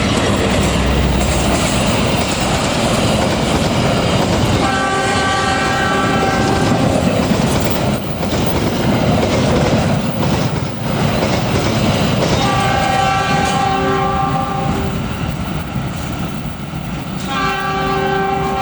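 Taksaka passenger train passing with its wheels rumbling and clattering on the rails. The locomotive horn sounds three times, each blast a steady chord of about two and a half seconds, the last running on at the end.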